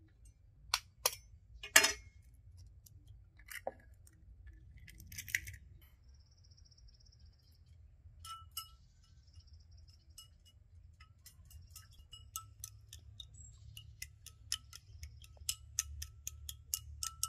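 Chopsticks beating a raw egg in a small ceramic bowl, clinking against its sides. A few sharp knocks come in the first couple of seconds, then from about twelve seconds in a steady run of light clicks, about four a second.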